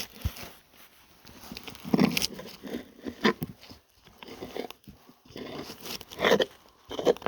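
Irregular scraping and scratching with a few sharper knocks: packed sawdust being scraped and cleared from the chainsaw body around the bar mount and sprocket.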